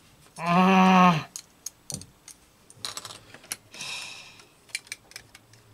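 A brief wordless vocal sound, then the hard plastic parts of an Airfix Quickbuild snap-together kit clicking and tapping as they are handled and pressed together, with a short rubbing sound midway.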